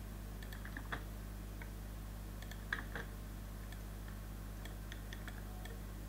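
Computer mouse clicks, the loudest a close pair about three seconds in, with a few fainter ticks later, over a steady low electrical hum.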